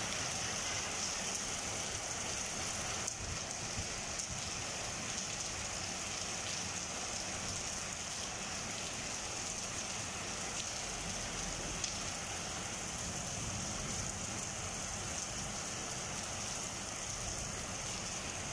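Rain falling steadily on a paved courtyard and stone porch, an even hiss of rain with no change.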